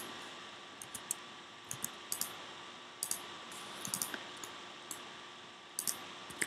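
Scattered clicks of a computer keyboard and mouse, single or in quick pairs, as values are entered into software fields, over a faint steady hiss.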